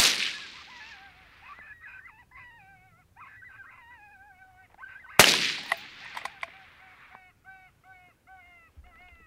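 Two rifle shots, one at the start and one about five seconds in, each trailing off in a long echo across the open country. Between and after them, high wavering yipping calls repeat again and again.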